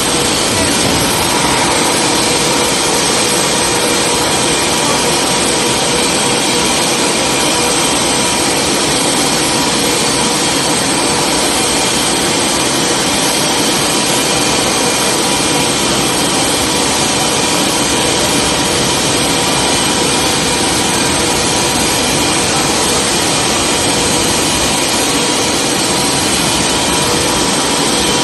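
Steady, loud jet-like whine and rush of the machinery powering a Boeing 747's landing gear retraction, with several unchanging high tones, as the main gear folds up into the wheel wells.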